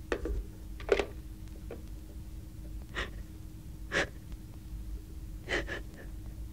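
A woman sobbing quietly: about half a dozen short, gasping breaths, a second or two apart.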